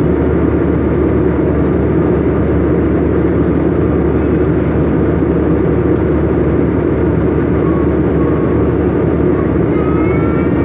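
Steady rumble of a jet airliner's cabin in flight: engine and rushing-air noise, even and unbroken.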